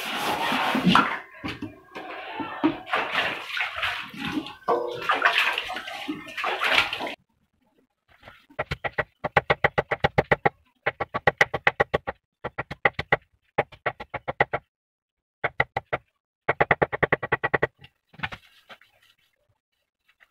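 Metal pots and bowls being washed by hand in a basin of water, splashing and clattering, which cuts off suddenly about seven seconds in. After a short silence comes a knife chopping a pile of titepati (mugwort) on a wooden board, in quick bursts of rapid strokes, about eight or nine a second, with short pauses between bursts.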